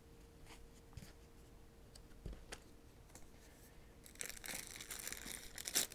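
A few faint light taps of packaging being handled, then from about four seconds in, the clear plastic bag around a headphone carrying case crinkling as hands grip it to pull it out of the box.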